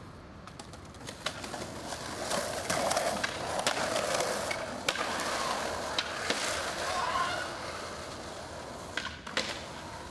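Skateboard wheels rolling on street asphalt, a steady gritty rumble that swells a couple of seconds in and eases off near the end, with scattered sharp clicks.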